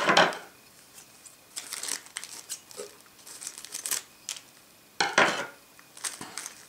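Clear plastic bag crinkling in several short rustling bursts as it is handled and snipped open with scissors.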